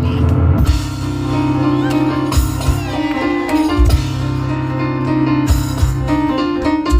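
Live instrumental music: piano playing fast runs over cajon and tambourine percussion, with sharp accented hits about every one and a half seconds.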